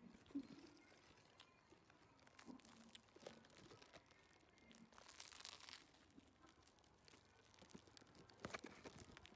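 Near silence with faint scattered crinkling and small clicks: a short rustle about five seconds in and a cluster of clicks near the end.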